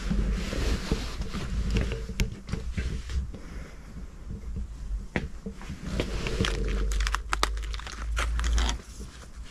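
Rustling and handling noise with a low rumble, as plastic-packaged fishing tackle on pegboard hooks is handled, with a cluster of sharp clicks past the middle.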